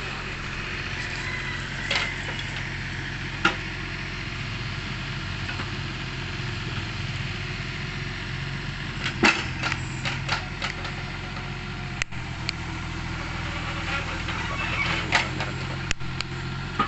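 Excavator engine running steadily with a low hum, with a few sharp knocks or clanks, most of them about nine to ten seconds in and again near the end.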